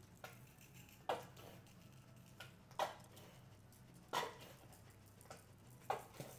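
Black pepper being sprinkled over salmon fillets on a foil-lined sheet pan, heard as four faint, short, sharp strokes about a second and a half apart, over a steady low room hum.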